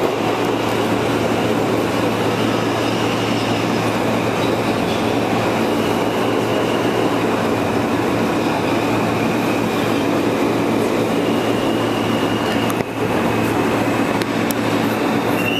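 New York subway cars running at speed through a tunnel, heard from inside a car: a steady loud rumble of wheels on rails with a low hum and a faint high whine. The level dips briefly about 13 seconds in, and a rising whine starts at the very end.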